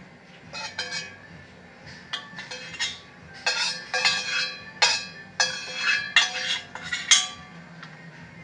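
Metal kitchenware clinking and scraping against a pot in a quick run of strokes, as hot ginger and panela syrup is strained.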